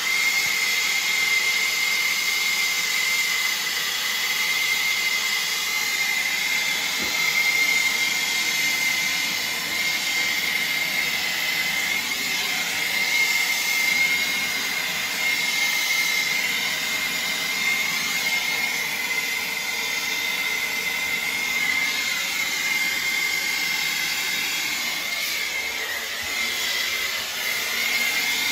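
Hose-fed soldering torch burning with a steady hissing roar and a constant high whistle, heating a copper water-pipe fitting for sweat soldering.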